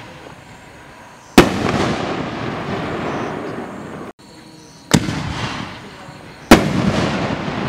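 Firework bangs from a 6-inch canister aerial shell: three sharp reports, about a second and a half in, about five seconds in and near the end, each followed by a long rumbling tail.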